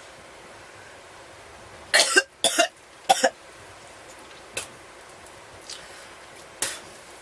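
A man coughing: three sharp coughs in quick succession about two seconds in, then two fainter ones. He is nauseated and close to vomiting from the ghost pepper.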